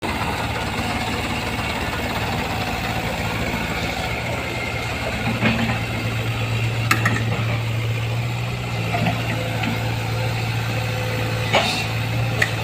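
A heavy vehicle engine running steadily with a low hum, with a few short sharp knocks in the second half.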